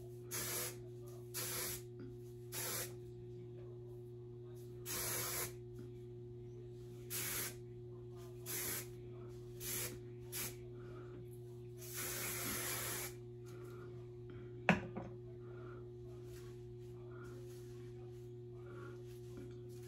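Tressalore wig wax aerosol spray being sprayed onto a wig in short hissing bursts, about ten in the first thirteen seconds, the last one longer. About fifteen seconds in, a single sharp knock.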